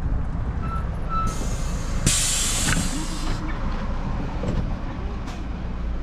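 City bus idling at a stop, its engine rumbling low and steady. About a second in, a loud hiss of compressed air from the air brakes or door system starts and runs for about two seconds, just after two short high beeps.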